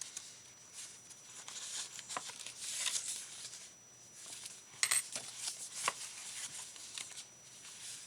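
Paper rustling as the pages of a handmade journal are turned and handled, in several soft swishes, with a few light ticks and taps, the clearest about five seconds in.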